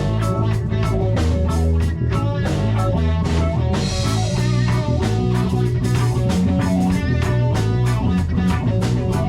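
A band playing an instrumental passage: guitar over bass and drum kit in a steady beat, with no singing, and a cymbal wash about four seconds in.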